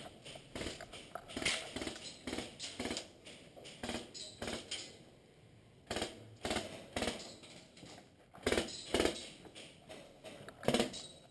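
Irregular clicks, knocks and scuffs, a few each second, from an airsoft player moving with a rifle-mounted camera: footsteps and rifle and gear handling. There is a short quieter pause about five seconds in.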